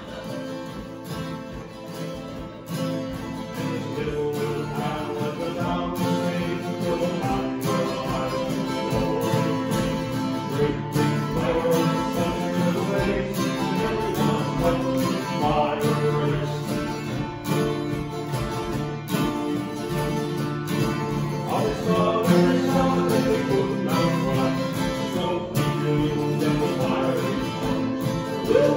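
Two acoustic guitars strummed together, playing a tune.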